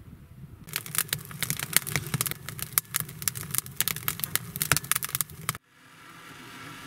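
Firewood crackling and popping as it burns in a wood stove's firebox: dense, sharp pops over a low rumble. It cuts off abruptly about five and a half seconds in, leaving a quieter steady hum.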